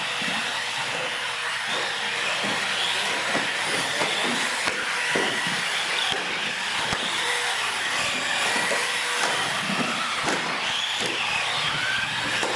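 Several radio-controlled UTV trucks racing on a concrete floor: their motors whine up and down with the throttle over a steady hiss of running gear and tyres, with a few light knocks.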